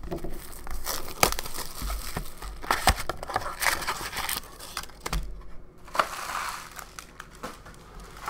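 Foil-wrapped Upper Deck Ice hockey card packs crinkling and rustling as they are pulled out of the opened cardboard box and set down, with small clicks and taps of cardboard handling.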